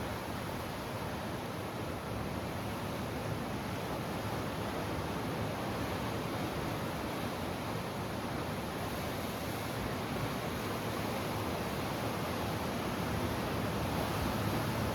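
Ocean surf: a steady rush of waves, swelling a little near the end.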